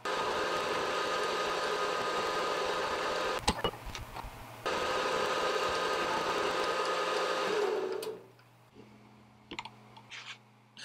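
Benchtop milling machine running, its end mill cutting the square drive end of a metal chuck key blank held in the vise. The sound breaks off briefly with a couple of clicks around four seconds in, then the spindle winds down with a falling hum about eight seconds in, leaving a few light clicks.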